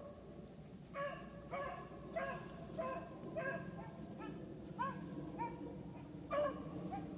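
Beagle hounds baying while running a rabbit on its scent trail: a faint string of short, pitched bays, about two a second, starting about a second in.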